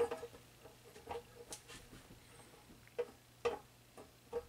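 Scattered light clicks and knocks, about ten in all, from the wire pot grate and sheet-metal body of a single-burner propane camping stove as hands press and shift it; a few strokes ring briefly.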